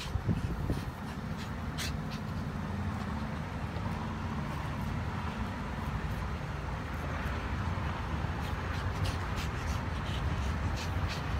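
Pomeranians rolling and rubbing on dry grass: scattered short rustles and scrapes, a few stronger ones in the first second, over a steady low outdoor rumble.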